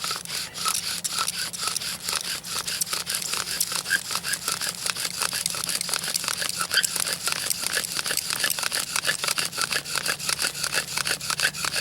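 Bow drill running hard: the wooden spindle grinding and squeaking in the hearthboard notch under fast, even strokes of the bow, building friction for an ember. It stops abruptly at the very end.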